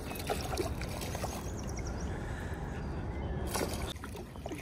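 Hooked fish splashing and thrashing at the water's surface, with short splashes over a low steady rumble.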